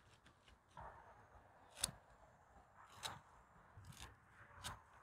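Faint, scattered crinkles and clicks of aluminium foil being pressed and smoothed by hand around a wrapped whole chicken, with one sharper click about two seconds in.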